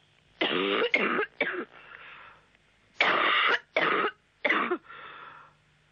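A woman coughing hard in several fits, about five coughs with short pauses between them, heard over a telephone line with a faint steady hum beneath.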